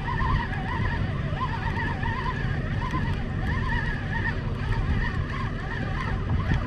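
Spinning reel being cranked steadily to bring in a hooked hairtail (cutlassfish), its gears giving a thin wavering whine that rises and falls over and over, over a steady low rumble.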